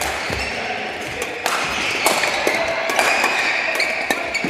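Badminton doubles rally: a string of sharp racket strikes on the shuttlecock, mixed with players' footfalls and shoe squeaks on the court floor.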